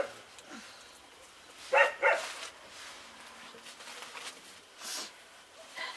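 A dog barking: one short bark at the start, then a quick pair of barks about two seconds in.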